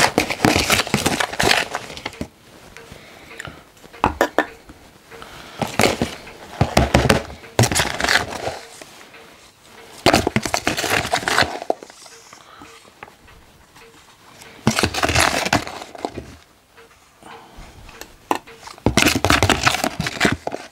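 Casting sand scooped by hand from a plastic tub and dropped into a moulding flask: bursts of crunching, rustling and plastic handling about every two to four seconds, six times.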